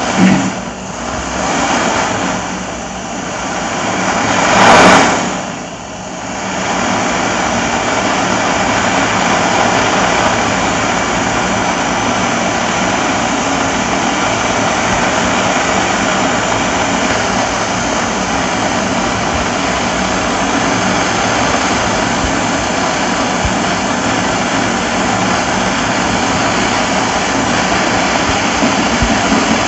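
Jeweller's torch flame blowing steadily onto gold scrap melting with borax flux in a charred cedar-wood block. It swells loud about five seconds in, then settles to an even rush.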